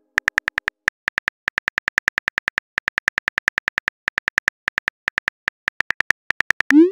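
Smartphone keyboard click sounds as a text message is typed, several sharp clicks a second with short pauses. A short rising whoosh near the end, as the message is sent.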